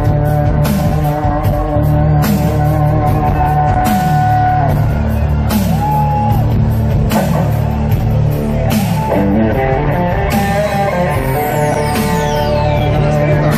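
Rock music with guitar and drums, a steady beat.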